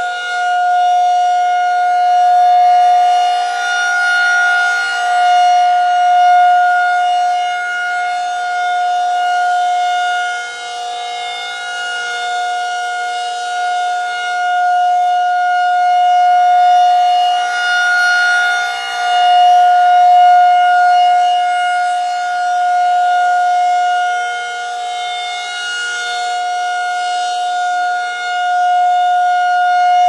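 Federal Signal 2001-SRN rotating electromechanical siren sounding a steady alert tone, one unchanging pitch that swells and fades every few seconds as the horn turns.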